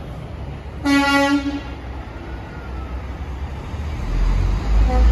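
A horn sounds once, a steady single-pitched blast just under a second long, about a second in. Then a semi truck's diesel engine pulls past, its low rumble getting loud over the last second.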